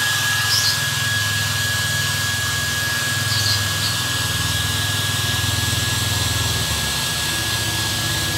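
Electric blow dryer running steadily, a constant rushing noise with a high steady whine and a low hum, drying a Persian cat's coat after its bath.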